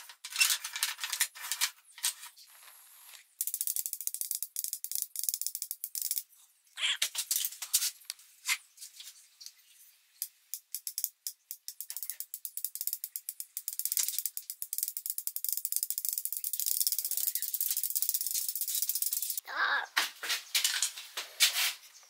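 Wooden barbecue tongs clacking and rattling as they are handled and squeezed: bursts of sharp clicks, a long run of rapid clicking in the middle, and a few louder knocks near the end.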